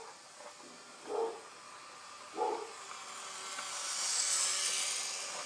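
Toy train running over the phone: a hissing whir that swells about three seconds in, peaks a little after four and then fades. Before it, three short yelps about a second apart.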